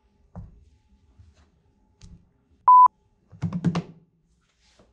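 A short, loud electronic beep, one steady pitch lasting about a quarter second, a little past the middle, followed by a quick run of knocks and thumps.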